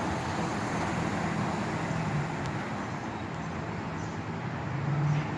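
Road traffic noise: a steady wash of passing vehicles with a low engine hum that grows louder near the end.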